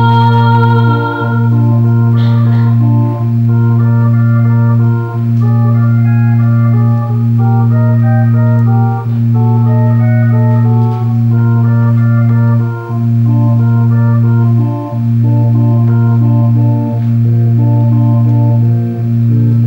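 Organ music: a low bass note held under a melody of short notes, the bass re-struck about every two seconds.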